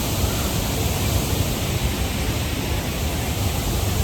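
Steady rushing noise with a gusty low rumble, typical of wind buffeting the microphone.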